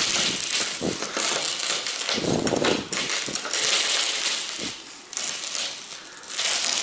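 Pry bar crunching and scraping through the old windshield's glue bead, in irregular gritty strokes with crackling clicks as it cuts its way along.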